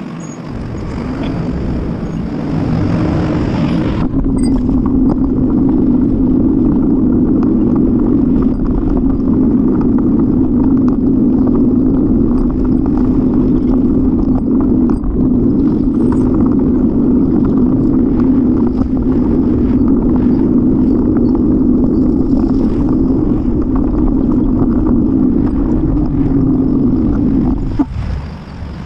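Steady rumble of wind and road noise on a camera mounted on a moving bicycle. It builds over the first few seconds and cuts off sharply near the end as the bike comes to a stop at a crossing.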